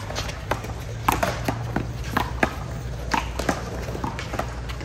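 One-wall handball rally: a small rubber ball slapped by gloved hands and rebounding off the wall and court, a dozen or so sharp smacks at irregular intervals.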